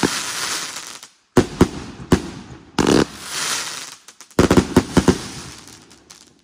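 Zeppelin consumer fireworks cake firing its last shots: volleys of sharp bangs, each trailed by a crackling hiss from the bursting stars. The volleys come about every second and a half, and the last one dies away near the end.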